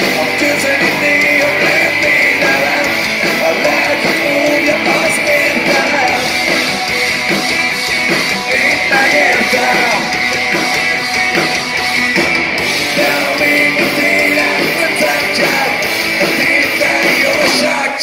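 Rock band playing live at full volume: electric guitars, bass guitar and drums in a dense, continuous wall of sound.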